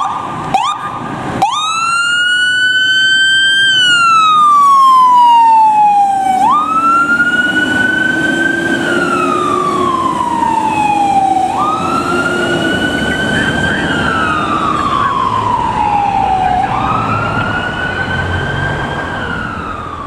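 Fire engine siren on a slow wail, each rise and fall taking about five seconds, over the running engine of the 2020 E-One pumper. The siren starts with a quick rise about a second and a half in and fades near the end as the truck moves away.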